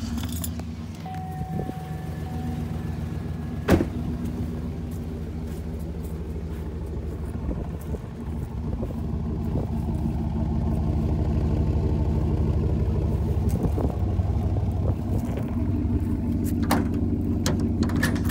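2005 Chevrolet Silverado 2500's 6.0-litre gas V8 idling steadily through its exhaust, growing louder from about ten seconds in. A single sharp knock comes about four seconds in.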